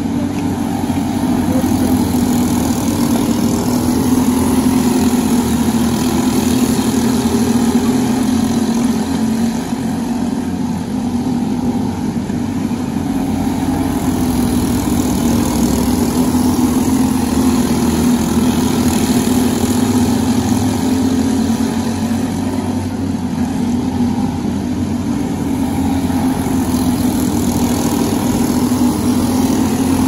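Several racing karts' small engines running at speed on the track, a continuous engine drone that swells and fades every several seconds as the pack comes past.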